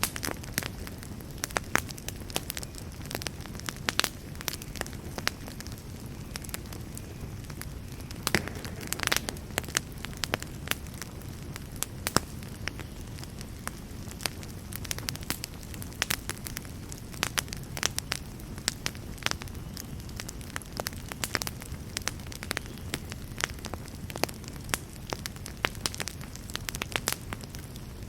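Wood fire burning in a fireplace, a steady low rumble of flames under frequent, irregular sharp crackles and pops from the burning wood.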